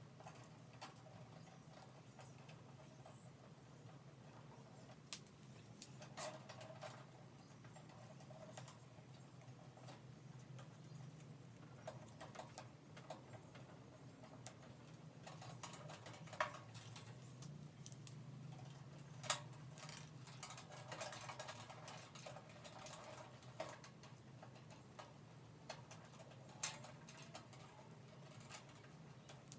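Faint rustling, scraping and small clicks of hands working the thin wire leads of a fluorescent fixture's ballast, twisting wire connectors onto them, with a few sharper ticks.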